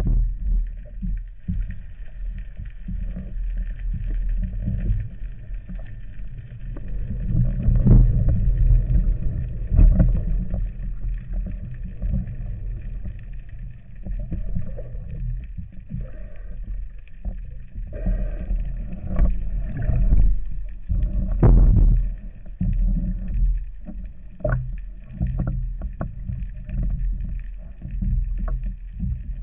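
Muffled water noise picked up by an underwater camera: a low rumble with scattered short knocks and thumps.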